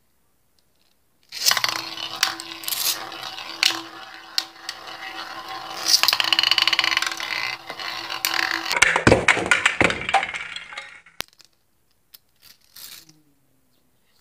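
Two Beyblade Burst spinning tops, Lost Longinus and Valtryek, whirring and scraping on the glass of a pot-lid stadium, with sharp clacks as they hit each other and the rim. The sound starts suddenly about a second in and stops about eleven seconds in, followed by a couple of faint taps.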